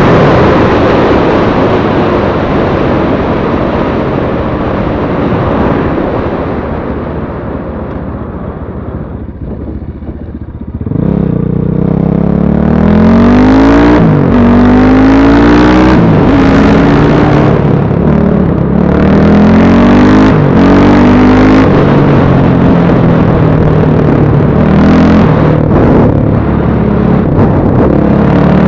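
BSE Z6 enduro motorcycle riding. At first it runs steadily and loud, then eases off for a few seconds. From about eleven seconds in, its engine pitch climbs and drops back again and again as it accelerates and revs.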